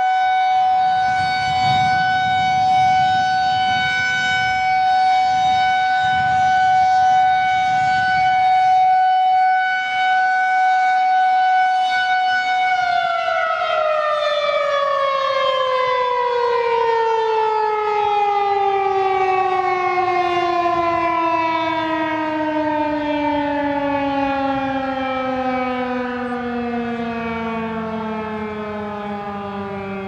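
Federal Signal 2001-130 electromechanical tornado siren sounding a steady tone for its weekly test, then, about twelve seconds in, winding down with its pitch falling slowly and smoothly.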